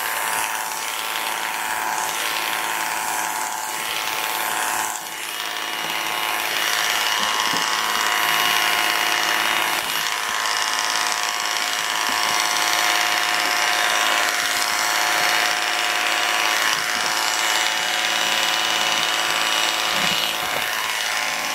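Corded electric dog-grooming clippers running steadily, a constant motor hum, as they trim a poodle's curly coat around the feet.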